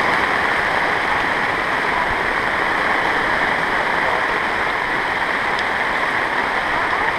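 Steady rushing noise of rain and a fast-flowing whitewater river, unbroken and even throughout.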